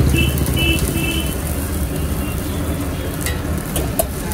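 Egg mixture sizzling on a large flat iron griddle while a steel spatula scrapes and chops on the hot metal, with a few sharp metal clicks about three to four seconds in.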